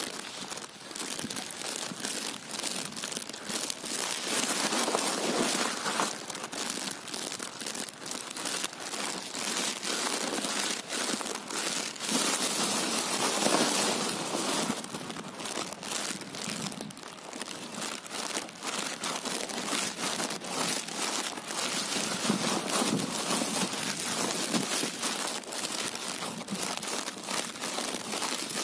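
Irrigation water spreading over and soaking into muddy, straw-strewn field soil, a dense crackle of many small clicks that grows louder and softer in stretches.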